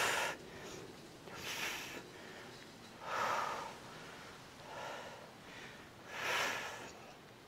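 A woman breathing hard from exertion during a side-plank hip-lift exercise: about five heavy breaths, roughly a second and a half apart.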